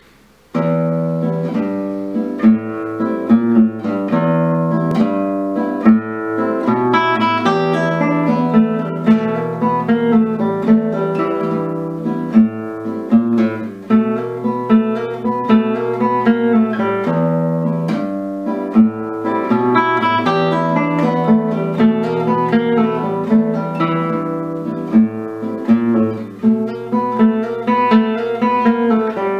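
Nylon-string classical guitar played solo: a blues piece with a repeating bass line under plucked melody notes. The playing starts about half a second in.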